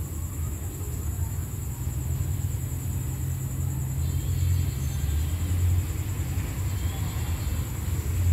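Low, steady rumble of diesel locomotive GEA 4525 approaching while still some distance off, growing slightly louder.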